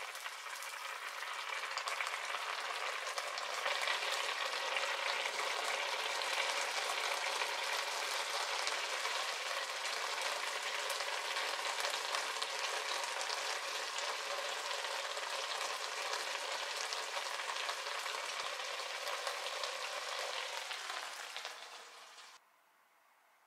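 Chicken, onion and beaten egg in a soy and mirin broth sizzling and bubbling steadily in a frying pan on the hob. It grows louder a few seconds in, then fades and cuts off just before the end.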